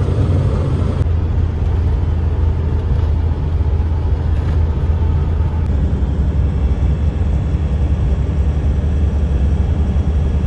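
Steady low drone of a truck cruising on the highway, heard inside the cab: engine hum and road noise with no change in pace.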